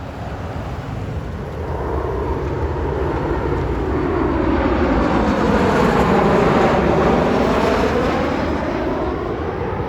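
Boeing 737 MAX 8 jet on landing approach passing by, its CFM LEAP-1B engines a rushing roar that swells to its loudest about six to seven seconds in as it passes closest, then begins to ease.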